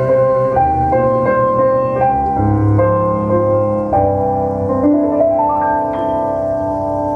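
Instrumental ending of a slow vocal ballad, piano chords with accompaniment, played back over Sansui SP-2002 loudspeakers whose woofer and mid-bass edges have been softened and network capacitors replaced. The chords change every second or so, then settle into one long held chord about five seconds in.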